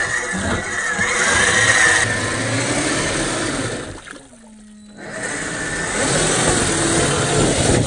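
1/10-scale RGT EX86190 RC crawler wading through a shallow creek: water splashing and churning around its tyres over the whine of its 550 electric motor and gearbox. The sound drops away for about a second near the middle, then picks up again.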